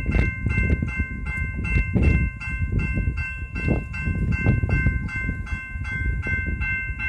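Level crossing warning bell ringing in rapid, regular strokes, about four a second, with its tones hanging on between strokes, over a low rumble.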